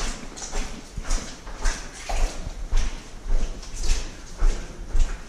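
Footsteps of someone walking at a steady pace through a mine tunnel, a little under two steps a second.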